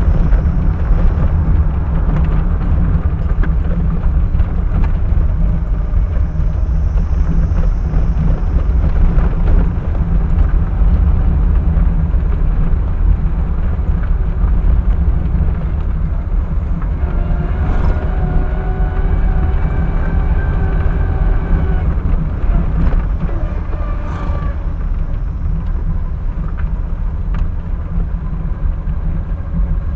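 Steady low road and engine rumble of a moving car, as recorded by a dashcam. For about five seconds past the middle, a held pitched sound with several overtones rises above the rumble.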